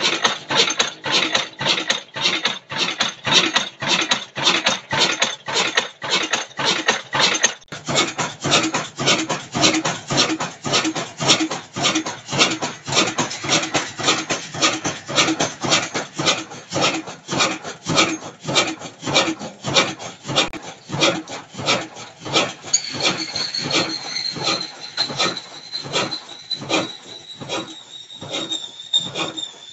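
Ruston Hornsby stationary engine with heavy flywheels running at slow speed, a steady beat of about two strokes a second. A high whine comes in about two thirds of the way through and slowly falls in pitch.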